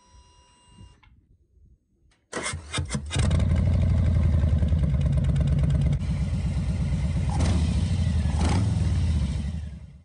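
Harley-Davidson Street Bob's Milwaukee-Eight V-twin engine being started about two seconds in, catching after a second of cranking and settling into a steady, lumpy idle through Rinehart slip-on mufflers. The sound fades out near the end.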